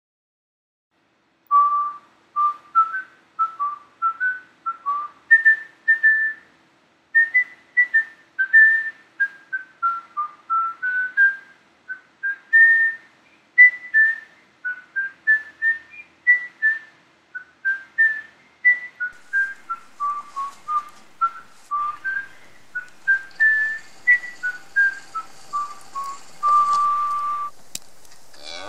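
A person whistling a tune, one clear note after another, ending on a long held note near the end. A faint hiss comes in under it in the last few seconds.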